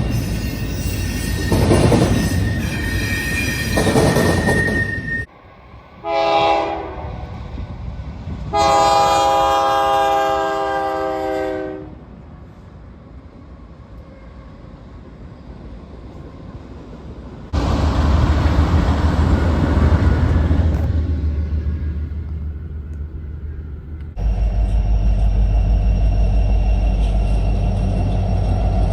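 Freight train sounds in several short clips: a train passing with rail noise, then a diesel locomotive's air horn sounding a short blast and then a longer chord-like blast, followed by the low steady rumble of diesel locomotive engines running.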